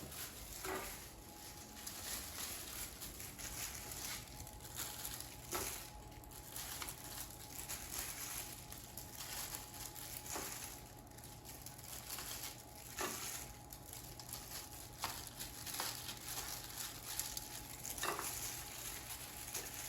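Raw chicken tenders being laid one at a time on a baking sheet: soft, short taps and slaps about every two seconds, over a faint steady hum.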